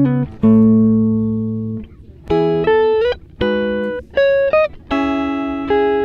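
Background music: a guitar plucking single notes and chords, each ringing and dying away, with a few notes sliding up in pitch.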